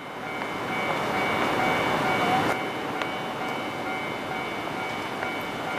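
A freight train hauled by a JR Freight EF200 electric locomotive approaching at a distance. A rushing rumble fades in over the first second, is loudest about two seconds in, and drops sharply near halfway. Several steady high tones sound over it.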